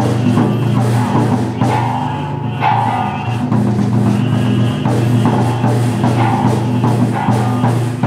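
Japanese temple prayer drum (taiko) struck over and over in a driving rhythm during a Buddhist prayer service, over a sustained low drone.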